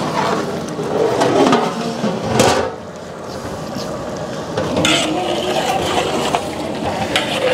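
Stirring in large cooking pots: a ladle swirling a big pot of salted water, with a single knock on the pot about two and a half seconds in, then a spatula stirring chicken masala in a second pot.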